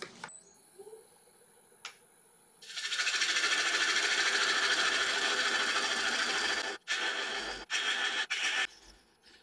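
A tool cutting wood: a loud, even scraping noise for about four seconds, then three short bursts of the same noise with brief gaps. A faint high steady whine and a few light clicks run underneath.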